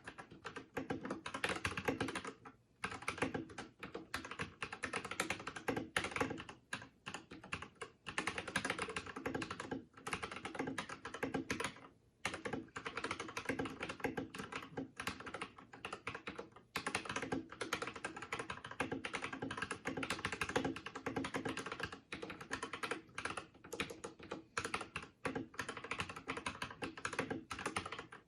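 Fast continuous typing on an Akko World Tour-Tokyo R1 3087 mechanical keyboard with Akko pink linear switches and PBT keycaps, a dense run of key clacks with a few short pauses.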